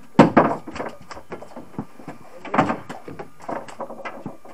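Thumps and knocks on a boat deck as a freshly caught ling is brought aboard and handled: a heavy thud just after the start, another about two and a half seconds in, and smaller knocks and clicks in between.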